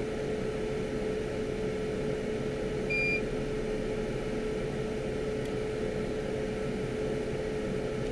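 Steady electrical hum with a constant tone, and one short high beep about three seconds in.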